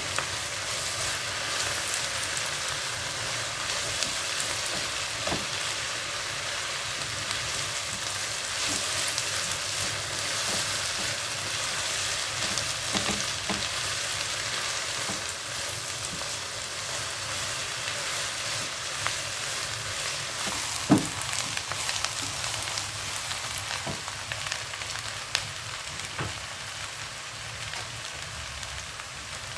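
Oil sizzling steadily as dried squid and aromatics fry in a nonstick wok, stirred with a silicone spatula that knocks against the pan now and then. The loudest knock comes about two-thirds of the way through.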